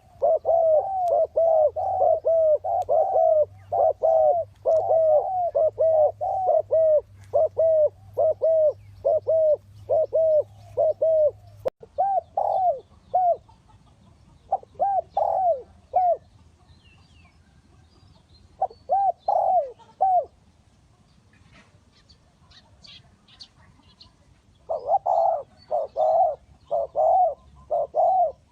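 Spotted dove cooing: a fast run of repeated arched coo notes, which after about twelve seconds breaks into shorter groups with pauses between them. Faint high chirps from another small bird sound in a lull before the cooing resumes near the end.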